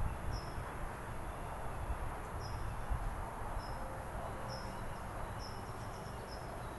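A small bird chirping outdoors: short high chirps at irregular intervals, roughly one to two a second, over a steady background hiss. A soft low rustle at the start as someone settles onto a yoga mat.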